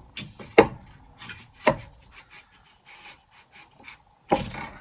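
Wooden framing block being handled and fitted: two sharp knocks of wood on wood about half a second and a second and a half in, light scraping between, and a louder rasping scrape near the end.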